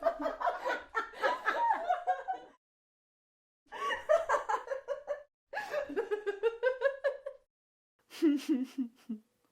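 Human laughter sound effects played one after another: a rhythmic ha-ha laugh that stops about two and a half seconds in, then after a pause three more short bouts of laughing, the last one lower-pitched.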